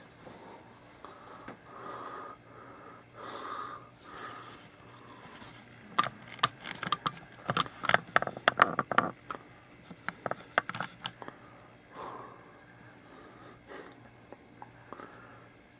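Plastic parts of a drip coffeemaker being handled and fitted together: rubbing and light handling noises, then a quick run of sharp clicks and knocks in the middle, thinning out near the end.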